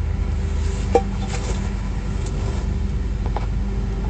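A steady low motor hum, like an engine idling, with one short sharp click about a second in and a few fainter ticks after.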